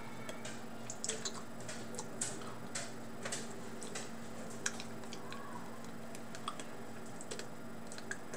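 Irregular small clicks and scrapes of a spoon working in a small metal can of wet dog food, mixed with the mouth sounds of eating it.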